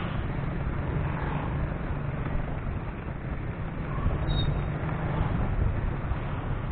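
Steady traffic noise heard while riding: a continuous low engine hum with road and wind hiss, and motorcycles and motor tricycles running close alongside.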